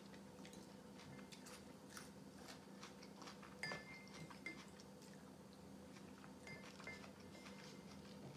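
Quiet eating sounds of cold beet soup (kholodnik): chewing, with small clicks of a plastic spoon against a ceramic soup bowl and a couple of brief high squeaks.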